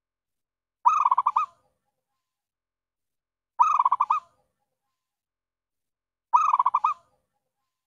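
Zebra dove (perkutut) calling: three identical short coos about every 2.7 seconds, each a quick run of rolling notes. This is a lure call for trapping zebra doves, repeated evenly like a loop.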